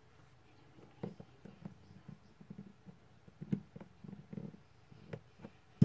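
Jewellery pliers and fine wire being handled on a padded work mat: irregular soft taps and rubbing, with a few sharp little clicks and the loudest click near the end.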